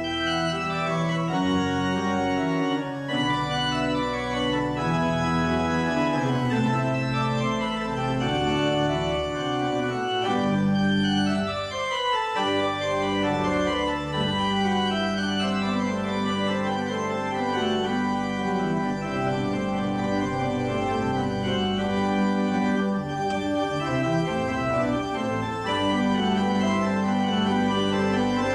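Organ music: slow, sustained chords with held bass notes that change every few seconds.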